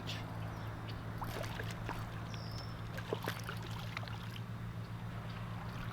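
Light splashing and sloshing at the water's edge as a hooked channel catfish is played near the bank, with scattered small knocks over a steady low hum. A brief high chirp comes about two and a half seconds in.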